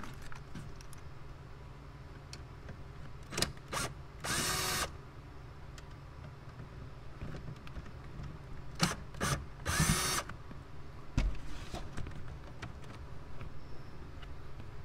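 Cordless drill/driver with a Torx T25 bit unscrewing the fasteners that hold a car's lower dash trim panel: two short whirring runs about five seconds apart, each preceded by a couple of sharp clicks.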